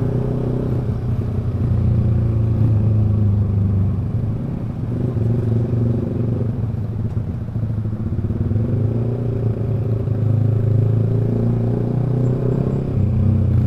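Yamaha R15 V3's single-cylinder engine through a loud aftermarket Proliner exhaust, running at low, steady revs while crawling in a traffic jam.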